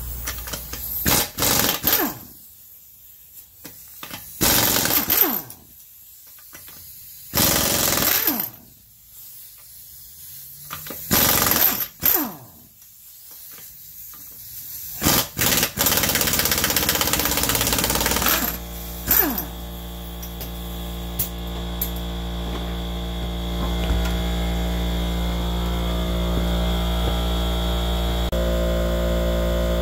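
Impact wrench hammering wheel lug nuts loose, in several rattling bursts of a second or two with short pauses between nuts. After that a steady drone of held tones takes over.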